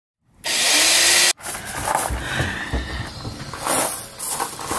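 A loud rushing noise for about a second that cuts off sharply, then irregular rubbing and light knocking as white electrical cable is pulled and worked along plastic cable clips.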